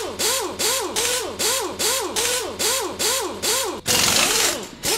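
Rhythmic mechanical strokes, about three a second, each with a squeal that rises and then falls in pitch over a scratchy hiss. A louder stretch of noise comes about four seconds in.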